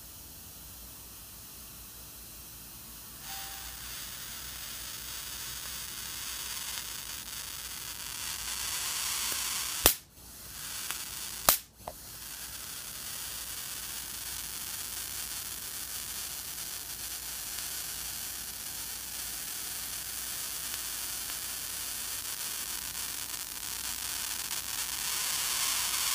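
High-voltage discharge from a CRT monitor's flyback transformer lead held against the grounded steel chassis: a steady electrical hiss that turns louder about three seconds in and builds, sounding like a stun gun. Two sharp, loud cracks break through it about ten and eleven and a half seconds in.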